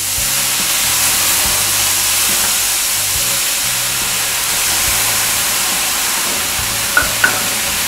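Water ladled onto the hot stones of a sauna stove, hissing steadily as it turns to steam. Two short clicks come about seven seconds in.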